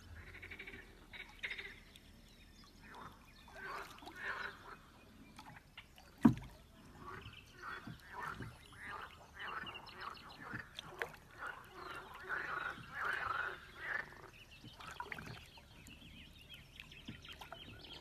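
Water splashing and swishing in short irregular bursts as a wooden boat is moved across still water, with one sharp knock about six seconds in.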